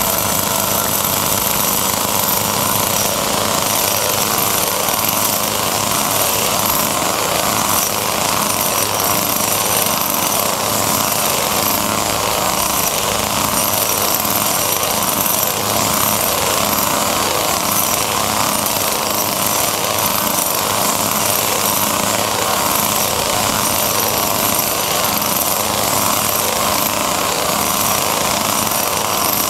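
Running chainsaws with small two-stroke engines, a steady unbroken engine drone while they are juggled.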